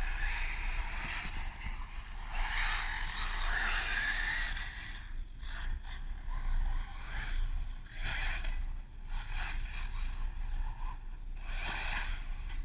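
Radio-controlled off-road cars running on a dirt track, their motors whining and rising and falling in pitch, in waves that swell and fade every second or two. A steady low rumble lies underneath.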